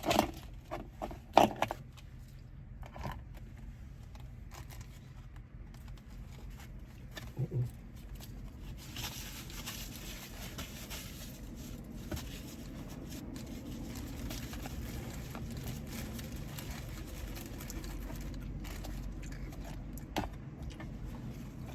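Inside a car, a few short crackles and clicks of food and its packaging being handled in the first couple of seconds, then a steady low hum with a faint hiss that rises from about nine seconds in.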